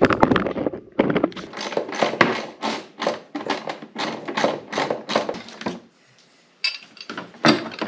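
Wrench tightening bolts down: quick, regular clicking strokes about three a second, with a short pause about six seconds in.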